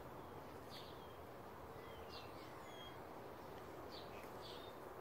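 Faint, scattered chirps of small birds, several short high calls spread through a few seconds, over a steady low background hum.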